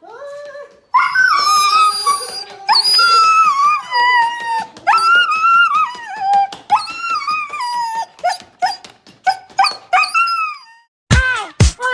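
A dog whining and howling: a string of high, drawn-out calls, most of them sliding down in pitch.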